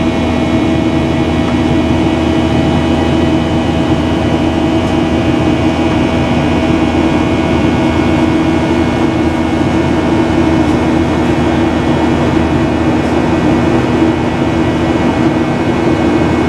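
Boeing 737-800 cabin noise heard from inside the cabin: the CFM56-7B turbofan engines running steadily under climb power shortly after takeoff, a constant rush of airflow with several steady whining engine tones.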